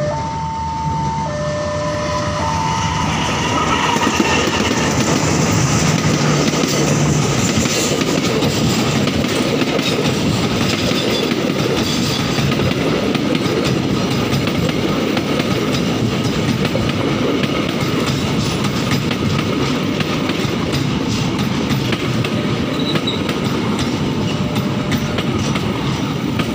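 Indonesian passenger train of economy coaches passing close by. In the first few seconds a horn sounds in short blasts that alternate between two notes. From about four seconds in the train grows louder, then wheels run over the rail joints in a steady clickety-clack as the coaches roll past.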